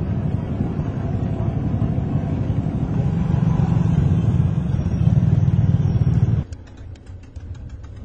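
Motorcycle and car engines in a busy street, a loud steady rumble that drops away abruptly about six and a half seconds in, leaving fainter clicking.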